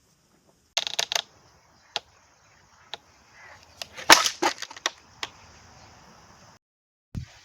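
Wooden knocks and clatter from a homemade counterweight trebuchet being tested: a quick cluster of sharp knocks about a second in, single clicks after, and the loudest knock with a short clatter about four seconds in.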